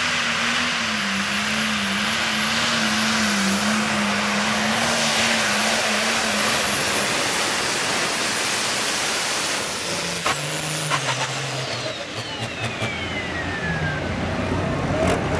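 Diesel pulling tractor running hard under load as it pulls the sled, a loud steady engine note that wavers in pitch. About ten seconds in, the sound changes to a closer tractor engine running lower, with scattered clicks and a high whine that winds down in pitch over a few seconds.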